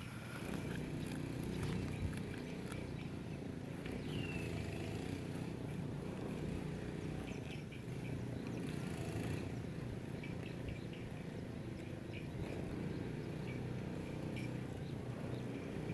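Cow grazing: grass torn and chewed in a run of small ticks, over a steady low rumble.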